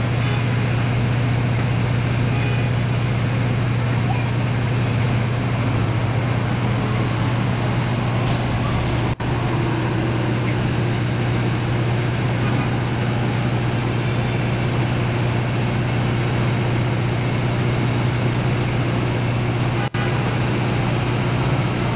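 Steady city street traffic noise with a constant low hum, cutting out for an instant twice.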